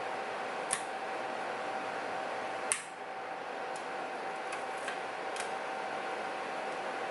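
Lock picking tools working inside an automotive door lock: a few light, scattered metal clicks, the sharpest about two and a half seconds in, over a steady hiss and hum.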